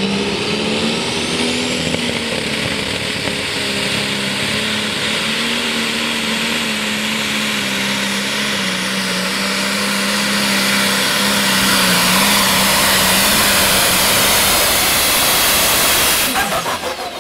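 Turbocharged diesel pulling tractor's engine held at high, steady revs under load, with a turbo whine rising in pitch over the first couple of seconds. The noise grows fuller over the last several seconds, then the sound cuts off abruptly just before the end.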